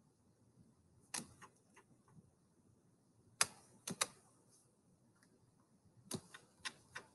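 Computer mouse clicking: a few short clicks about a second in, a cluster of three around three and a half to four seconds, and another quick run of clicks near the end.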